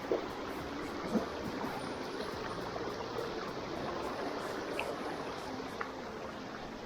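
Steady rush of stream water flowing over rocks, with two brief knocks about a second apart near the start.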